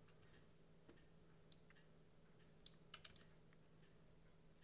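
Near silence: a faint steady hum of room tone with a few soft, scattered computer keyboard clicks, a small cluster of them about three seconds in.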